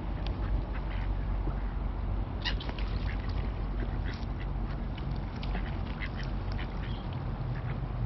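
Mallard ducks quacking and black-headed gulls calling: many short calls overlapping, with a steady low rumble beneath.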